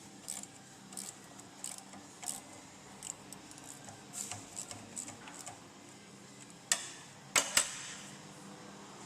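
Light metallic clicks and clinks of hand tools and parts being handled, a couple a second and uneven, with three sharper knocks close together near the end.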